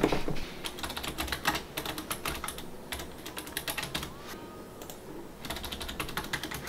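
Typing on a computer keyboard in quick runs of keystrokes, with a short pause of about a second in the middle. There is one brief thump right at the start.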